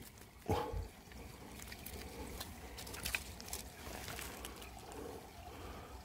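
Gloved hands rummaging through wet leaf litter, moss and twigs to pick up a small salamander, with scattered small clicks and rustles over a faint steady trickle of stream water. A short low sound comes about half a second in.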